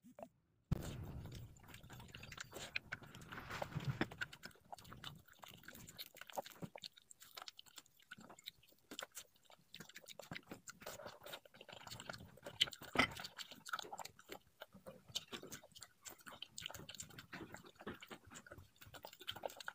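Chewing and small wet mouth clicks of a person eating rice and greens, with light taps of chopsticks against a ceramic rice bowl.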